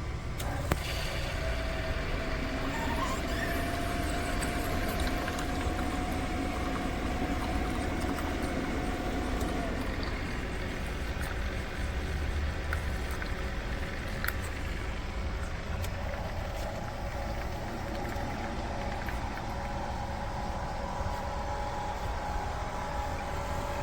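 CHULUX single-serve pod coffee maker heating its water before brewing: a steady rumbling hiss, with a faint whine that holds for several seconds near the start and another that comes in about two-thirds of the way through.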